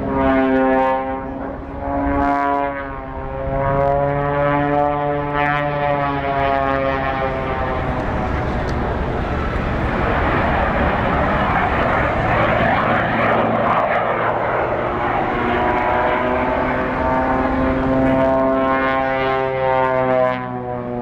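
Propeller airplane engine droning during an air show flyby. Its pitch slowly rises and falls as the plane moves, giving way in the middle to a broad rushing noise before the engine tone returns near the end.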